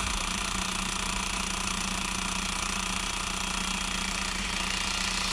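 Elna Explore 240 sewing machine, covers off, running steadily at speed.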